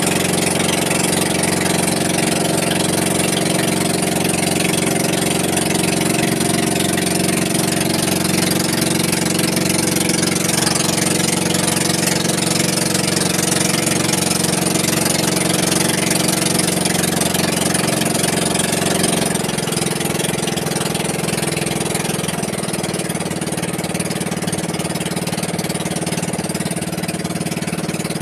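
Small inboard engine of a pumpboat (motorized outrigger bangka) running steadily under way. About two-thirds of the way through, its pitch steps down and it gets a little quieter as the engine is throttled back.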